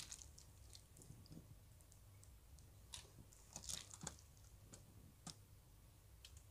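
Near silence with a few faint, wet clicks and squishes, most of them bunched a few seconds in, from gloved hands lifting sauce-coated noodles.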